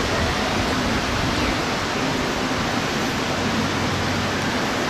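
Steady, even rushing noise with no breaks or distinct events.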